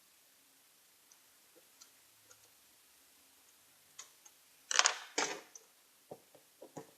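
Handling noises: a few faint clicks, then two short, loud scraping rustles in quick succession, followed by several sharp clicks.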